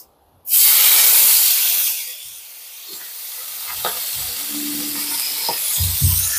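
Whole fish laid into hot cooking oil in a wok: a sudden loud sizzle starts about half a second in, eases after a second and a half into a steady frying sizzle, and a few light knocks come near the end as the fish are moved in the pan.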